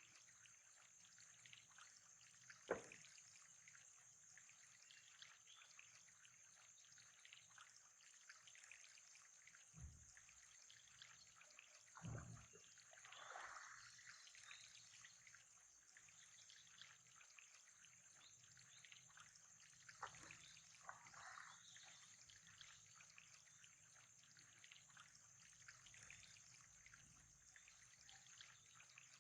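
Faint trickling water with a steady high hiss, broken by a few soft knocks and small splashing sounds; the sharpest knock comes about three seconds in.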